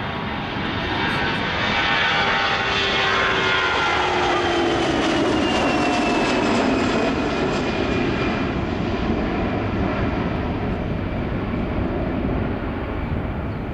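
Airbus A320-211's twin CFM56 turbofan engines at takeoff thrust as the jet passes, a loud steady rush with an engine whine that falls in pitch as it goes by.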